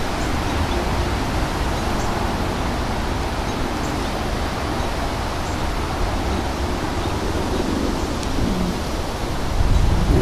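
Strong thunderstorm wind blowing, a steady rushing noise with low buffeting on the microphone. A gust makes it louder about nine and a half seconds in.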